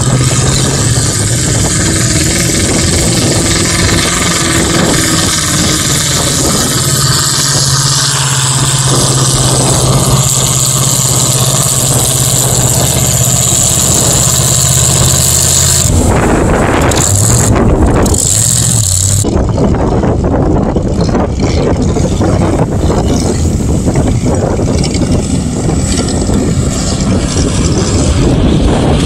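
Mud bog trucks' engines run hard at high throttle as a lifted Chevrolet K5 Blazer churns through the mud pit, with a steady engine note. About halfway through the engine note gives way to a loud rushing noise that briefly cuts in and out.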